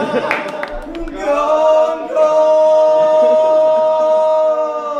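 Unaccompanied male chanting in the manner of Orthodox church chant: a short sung phrase, then one long held note from about two seconds in.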